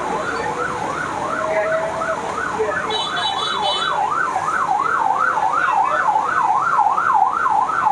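An electronic siren wailing quickly up and down, about three rises and falls a second, getting slightly louder.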